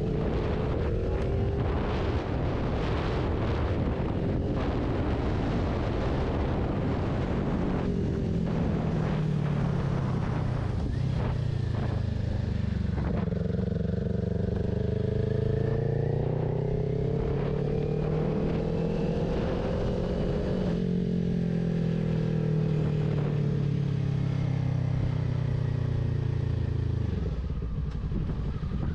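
A Kawasaki Ninja 400's parallel-twin engine, fitted with a Two Brothers aftermarket exhaust, pulls under way with wind rushing over the microphone. The revs climb slowly for several seconds, drop suddenly about two-thirds of the way through and then ease down, and the engine note falls away near the end.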